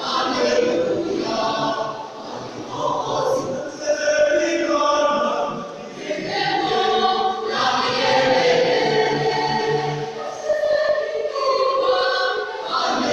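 Youth choir of boys and girls singing together, in phrases with brief dips between them.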